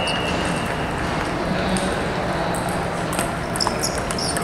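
Steady din of a large hall full of table tennis games, with celluloid balls ticking off paddles and tables; a few sharper clicks near the end as a rally gets going at the near table.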